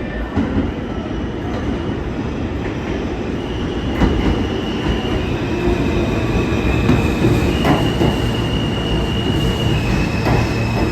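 R160 subway train running through the station with a steady rumble and occasional clicks from the wheels on the rail joints. From about three and a half seconds in, high steady wheel squeal sets in and switches back and forth between two pitches.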